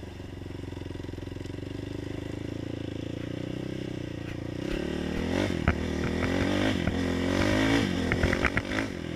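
450 quad's single-cylinder four-stroke engine running at a steady low speed, then from about halfway revving up and down under throttle, with sharp knocks and clatter from the machine over rough ground. The freshly tuned engine runs without popping.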